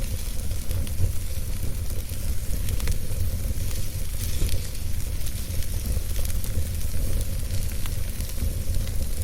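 Wood fire burning in a fireplace: a steady low rumble and hiss with scattered sharp crackles and pops.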